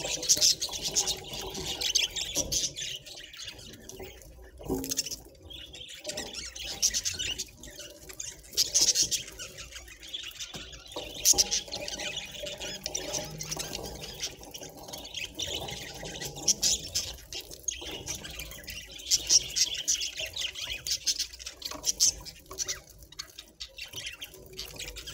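Budgerigar (pet budgie) chattering and warbling continuously, a mix of rapid chirps, squawks and clicks with louder bursts every few seconds.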